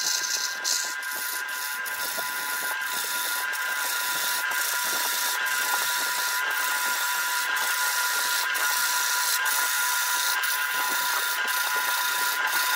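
Wood lathe turning a large wooden blank while a steel turning tool cuts its spinning surface: a steady scraping cutting noise over a constant whine from the machine, with brief short breaks in the cutting noise every second or so.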